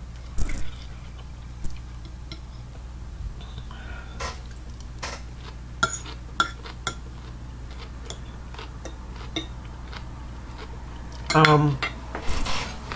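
Eating utensil clicking and scraping against a dish of food in scattered light clicks, with a short voiced sound near the end.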